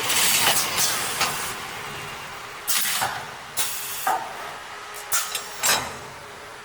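CNC paper-tube cutting machine at work: a hiss that fades over the first two seconds, then a run of about six sharp, irregular clacks.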